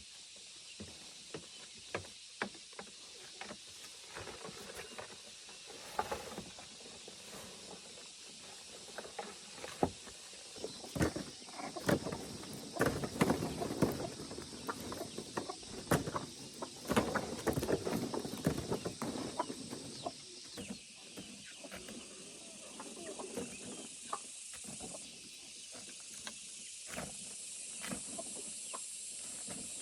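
Steady rain hiss with many scattered taps and knocks, thickest and loudest in a stretch through the middle.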